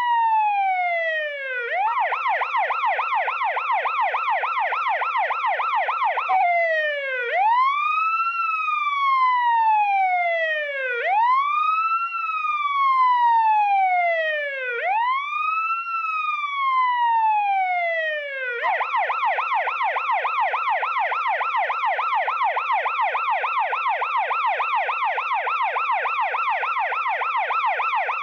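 Police siren switching between modes. A rapid yelp warbles quickly up and down, then gives way about six seconds in to a slow wail, each cycle rising fast and falling slowly over about four seconds. The rapid yelp returns about two-thirds of the way through.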